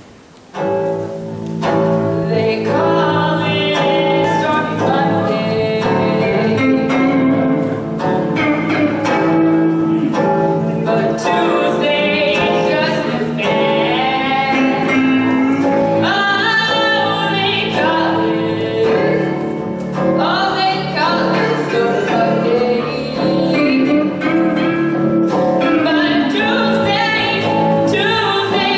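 A large guitar ensemble playing a slow blues live, starting about half a second in.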